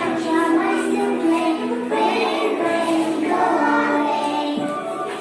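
A children's nursery-rhyme song: young voices singing a simple melody over musical accompaniment.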